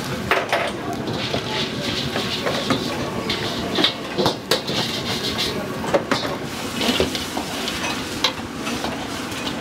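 Wok cooking over a strong burner: food sizzling in a hot wok under a steady rushing noise, with irregular sharp clanks of a metal ladle striking the wok.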